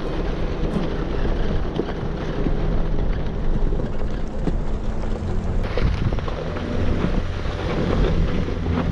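Jeep driving along a rocky dirt trail: a continuous low engine rumble with tyres crunching over gravel and small stones.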